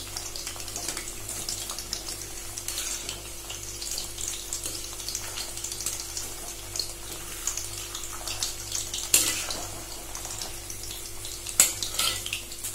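Chicken meatballs deep-frying in oil in an iron kadai on low flame: a steady sizzle with fine crackling. A slotted steel spoon turns them, with a few sharp taps against the pan, and a steady low hum runs underneath.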